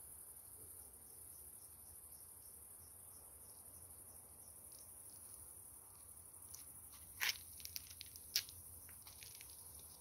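Crickets chirping in a faint, steady chorus, a high pulsing trill of about three chirps a second. About seven seconds in, a few sharp clicks and scuffs break in, the two loudest about a second apart.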